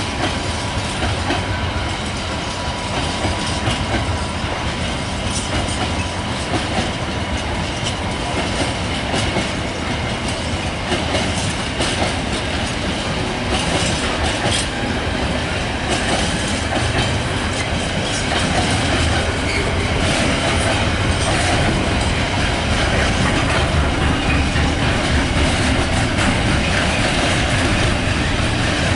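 Long container freight train rolling past, its wagon wheels clattering steadily over rail joints and pointwork, with a faint squeal of wheels on the rails. The sound grows a little louder in the second half as the wagons pass closer.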